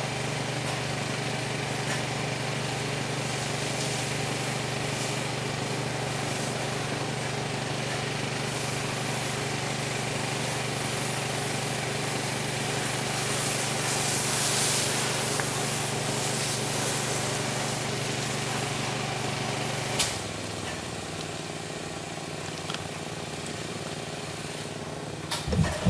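Pressure washer's small gas engine running steadily under a hiss of spraying water. About twenty seconds in there is a click, and the engine's hum drops as it eases off.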